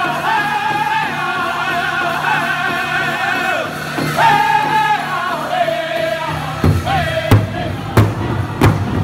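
Powwow drum group singing a Chicken Dance song in high unison voices around a big hide drum, the drum first beaten lightly under the voices. About seven seconds in, loud, sharp drum strikes begin, roughly three every two seconds.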